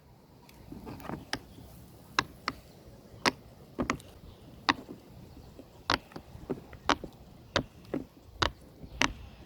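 Silicone pop-it fidget toy having its bubbles pressed one after another: a string of about a dozen short, sharp pops, roughly one every half second to one second.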